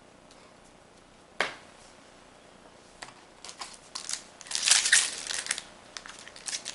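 A single sharp tap about a second and a half in, then a Magic: The Gathering booster pack's foil wrapper crinkling and tearing as it is ripped open, in a run of crackly bursts that grow loudest in the second half.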